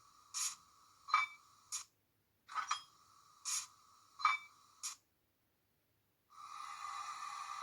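Sound decoder of an H0 model ÖBB 2016 diesel locomotive playing a sound function through its tiny speaker: a two-second run of sharp clicks over a steady tone, repeated twice the same way, then after a short silence a steady tone that starts about six seconds in. The sound is thin, with no bass.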